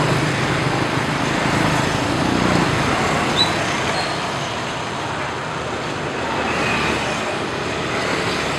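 Motor scooters and motorbikes passing at low speed, a steady mix of small engines and tyre noise. A short high chirp cuts through about three and a half seconds in.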